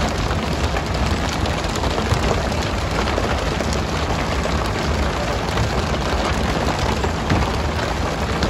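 Steady hiss and patter of water spray from a pole-and-line tuna boat's sprinkler jets, mixed with skipjack tuna slapping onto the deck as they are flicked aboard on poles.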